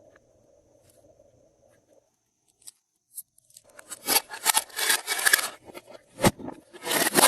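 Glossy slime being squished and stretched by hand: faint at first, then from about halfway through loud bursts of crackling and popping, with one sharp tap among them.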